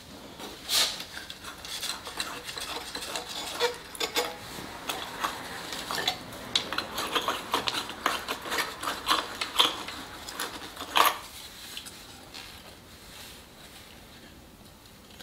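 Glass and plastic clinking and rattling as broken spiral compact fluorescent globes are handled and unscrewed from a softbox's multi-socket lamp holder, a flurry of small clicks and taps that thins out after about eleven seconds.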